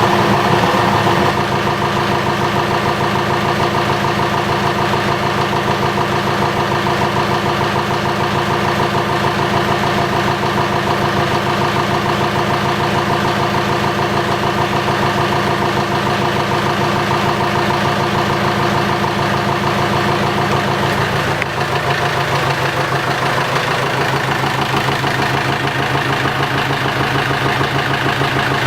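Freshly rebuilt Yanmar 4JH2E four-cylinder marine diesel running steadily on its first run after the rebuild. About two-thirds of the way in its speed drops a little and it settles to a slightly lower, steady run.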